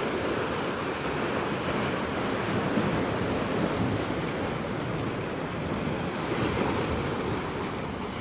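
Ocean surf washing over a rocky shoreline, a steady rushing noise, with wind on the microphone.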